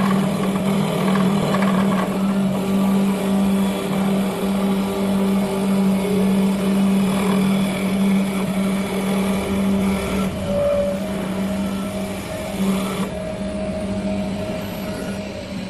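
CT 1516 double-axis CNC wood turning lathe running: a steady motor hum over a noisy rasp from the machine at work.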